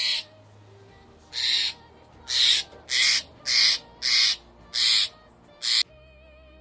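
A bird giving a quick series of harsh, high, screechy calls, about eight of them one after another, over faint background music. The calls stop shortly before the end, leaving only the music.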